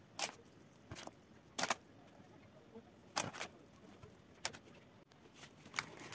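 Hands crumbling soft white cheese over oiled filo sheets in a baking pan, with a handful of light taps and clicks at irregular intervals.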